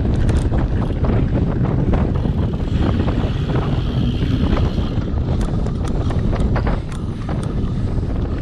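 Wind buffeting an action camera's microphone while a cyclocross bike is ridden at race pace, under a heavy low rumble, with scattered knocks and rattles from the bike bouncing over rough ground.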